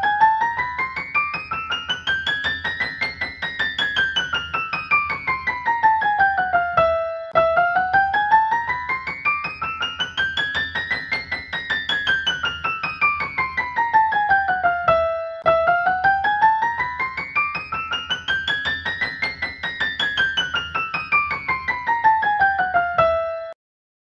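Grand piano with a Chernoplex rib scale and soundboard and Renner Blue Point hammers, played in octaves in its upper register. Three scale runs climb about an octave and a half and come back down, each about eight seconds long with a short break between them. The notes stop shortly before the end.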